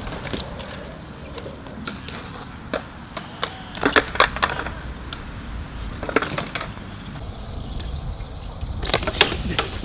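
BMX bike on concrete: tyres rolling, with clusters of sharp clacks and scrapes as the bike lands and its pegs grind a concrete ledge, loudest about four seconds in and again near the end.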